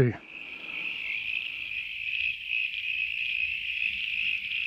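Crickets chirping in a steady, high-pitched, unbroken chorus.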